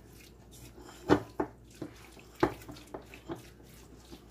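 Rubber spatula stirring a thick mayonnaise-based shrimp stuffing in a stainless steel mixing bowl: soft scraping with about six sharp knocks of the spatula against the bowl.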